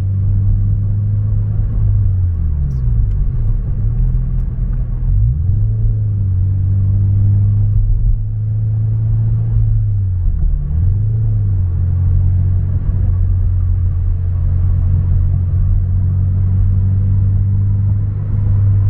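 Subaru BRZ's flat-four engine heard inside the cabin through an Invidia N1 catback exhaust while driving, a low bassy drone that fills the cabin. The engine pitch dips and climbs a couple of times, a few seconds in and again about halfway through, as revs change between shifts.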